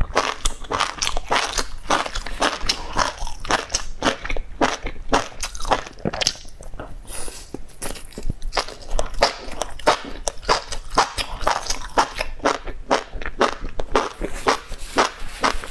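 A person biting and chewing mouthfuls of chili-coated enoki mushrooms, with quick, irregular crunchy chewing sounds several times a second.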